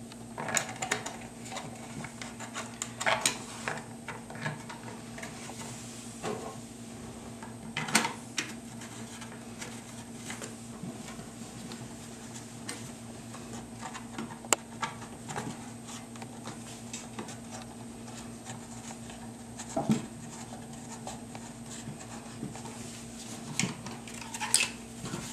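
Irregular clicks, taps and knocks of rifle-stock parts being handled as a side panel is fitted onto an AK-47 in a bullpup stock, with a steady low hum underneath.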